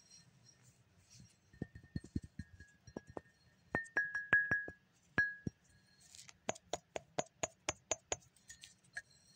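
A glazed ceramic mug being tapped and clinked: a few dull knocks, then light strikes that ring briefly like a bell, and near the end a quick, even run of about four taps a second at a different pitch.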